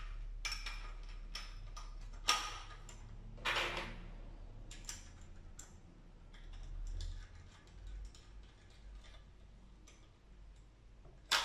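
Scattered light metallic clicks and taps from an Allen key and the metal lock parts of a smart lock's rear panel being handled, with a couple of sharper knocks in the first few seconds.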